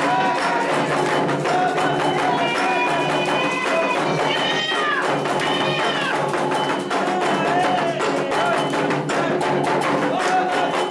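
Candomblé atabaque drums playing a fast, steady toque for Oxumaré, with voices singing a chant over the drumming.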